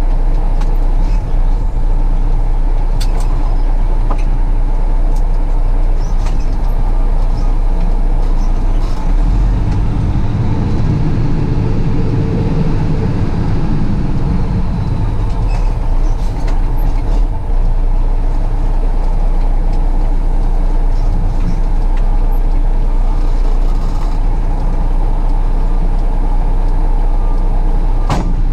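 Diesel engine of a semi truck tractor running as the tractor, with no trailer, maneuvers slowly. The engine swells into a louder rumble for a few seconds near the middle, then settles.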